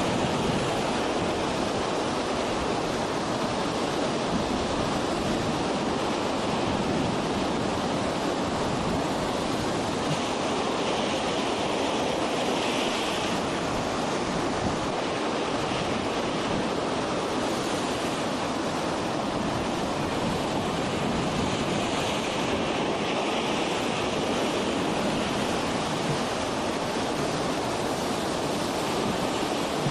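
Steady rushing noise of wind and choppy lake water, an even hiss with no engine note and no distinct events.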